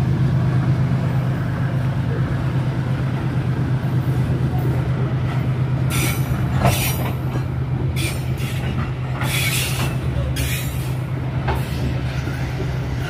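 Train coming up out of a cutting: a steady low drone from the diesel locomotive, with the wheels squealing on the rails in several short high bursts from about halfway through.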